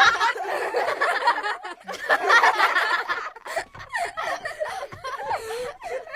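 A person laughing and chuckling in short bursts, louder in the first three seconds, then softer.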